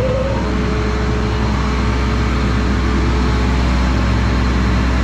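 Self-propelled crop sprayer's diesel engine running steadily at idle, a loud, even hum.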